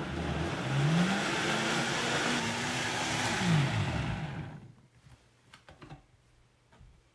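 A high-powered countertop blender runs, blending a thick smoothie of frozen berries and fruit. The motor's pitch rises about a second in, holds, then falls, and the blender stops about four and a half seconds in. A few faint clicks follow.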